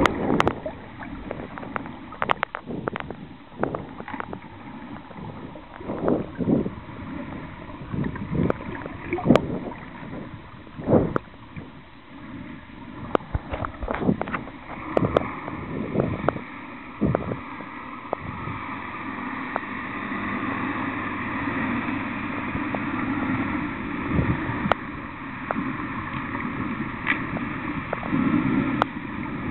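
Muffled underwater sound recorded by a snorkeler's camera below the surface: irregular knocks and splashes from the water and the handling, giving way about halfway through to a steadier rushing hum that slowly grows louder.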